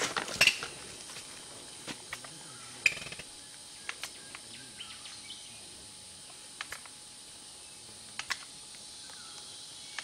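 Footsteps through dry forest litter: scattered sharp snaps and crackles of twigs and dry leaves underfoot, a brief cluster at the start, then single snaps every second or two, the loudest about three seconds in. A steady high hiss lies underneath.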